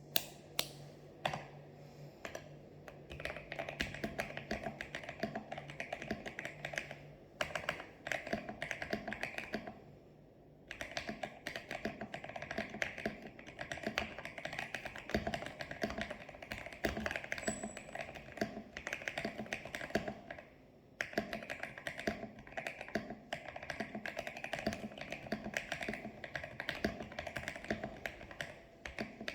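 Typing on a PC75B mechanical keyboard with lubed switches and stabilizers: fast, continuous keystroke clacks. A few single presses come at the start, and there are brief pauses about ten seconds in and just past twenty seconds in.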